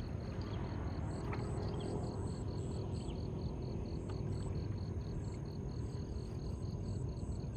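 An insect chirping in even, high-pitched pulses, about four to five a second, over a steady low rumble.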